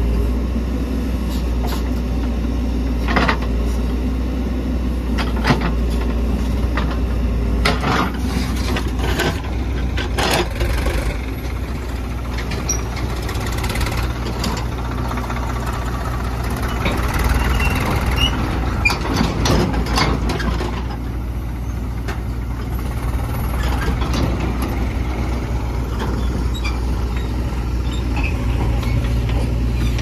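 Diesel engines of a JCB 3DX backhoe loader and farm tractors running steadily, with a few sharp knocks and clanks as the backhoe loads mud into a tractor trolley.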